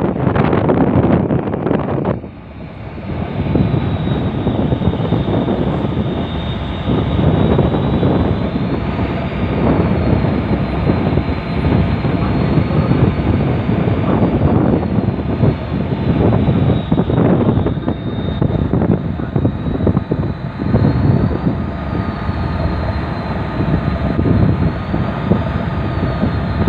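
Wind buffeting the microphone in gusts over a steady machinery drone carrying a few faint steady tones. The wind eases briefly about two seconds in, then swells again.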